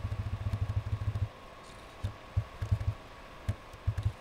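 A small engine puttering in the background at about ten low beats a second, cutting off a little over a second in; a few scattered low thumps follow.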